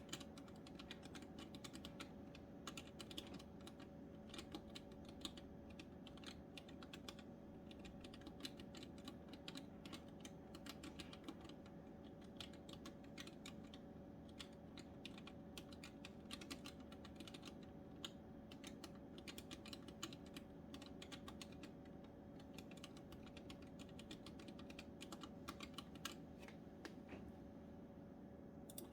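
Typing on a 3D-printed custom ergonomic keyboard, one hand on its left half: a quick, irregular stream of key clicks with short pauses, over a faint steady hum.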